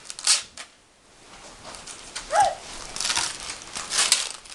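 Gift wrapping paper crinkling and tearing as a present is unwrapped by hand. There is a quick burst at the start, a short pause about a second in, then a longer stretch of rustling and ripping.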